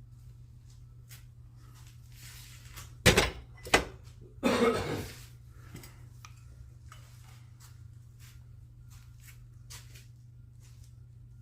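Two sharp knocks, then a short clattering scrape about a second later, over a low steady hum with faint scattered clicks.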